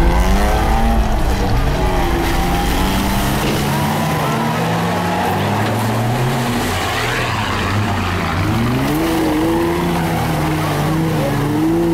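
Off-road 4x4 trucks' engines revving hard under load as they churn through deep mud, the pitch rising and falling again and again. Near the end two engines overlap.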